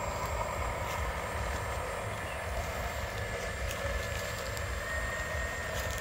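Radio-controlled model construction trucks running: a steady whir of small motors and gears over a low rumble.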